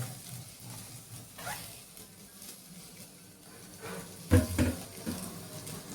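Okra frying in a pan with a faint sizzle, with a couple of sharp knocks a little over four seconds in.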